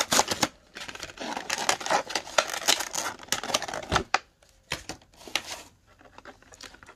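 Clear plastic blister packaging of a diecast model car crackling and clicking as it is pried open. About four seconds in there is a sharp click, followed by sparser clicks and taps.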